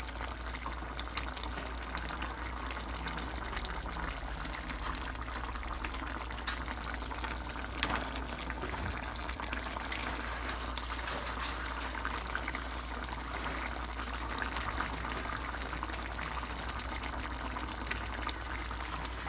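Chicken afritada stew simmering in a frying pan, its tomato sauce bubbling with a steady hiss and many small scattered pops.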